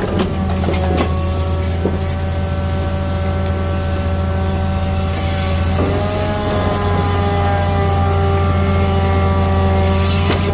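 A 5-ton grapple truck's engine running steadily, with a whine from the hydraulic crane, which steps up slightly in pitch about six seconds in. A few faint knocks are heard.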